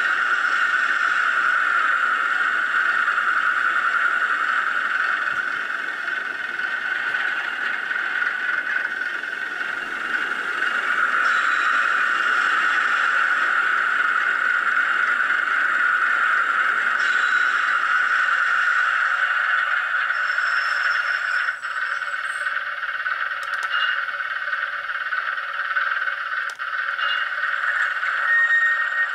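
Recorded Class 108 diesel multiple unit engine sound played by a DCC sound decoder through an OO-gauge model's small speaker. Heavy braking sounds come in during the second half, with squeal and a few sharp clanks as the engine note thins.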